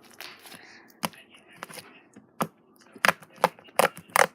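Slime being squeezed and stretched by hand, giving a string of sharp pops and clicks, about six of them, coming faster in the last second and a half.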